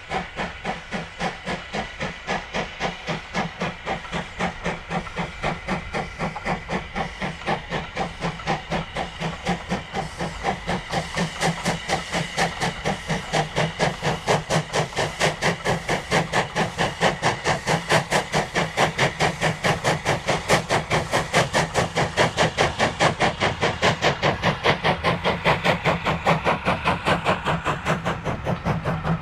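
LSWR T9 4-4-0 steam locomotive No. 30120 working hard. Its two-cylinder chimney exhaust beats at about four beats a second and grows louder as the locomotive draws near and passes.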